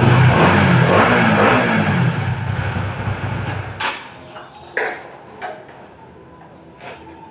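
Honda CBR150R's single-cylinder engine running and revved up and down a couple of times, then switched off about four seconds in, followed by a few light clicks and knocks.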